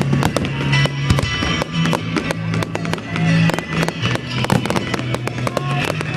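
Fireworks going off in rapid succession, a dense run of bangs and crackles, over music playing along with the show.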